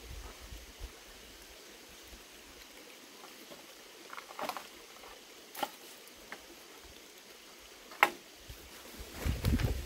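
A few sharp knocks on cut green bamboo poles as they are chopped and handled, the loudest about eight seconds in, with rustling of leaves and stems starting near the end.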